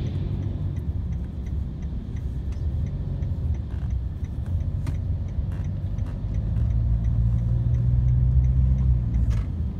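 Low engine and road rumble inside a moving car, swelling louder about seven seconds in, with a light ticking about three times a second over it and a couple of sharp clicks.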